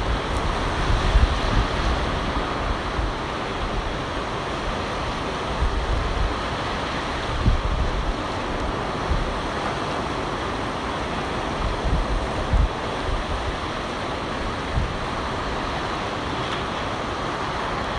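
Ocean surf washing steadily onto the beach, with wind buffeting the microphone in low rumbling gusts every few seconds.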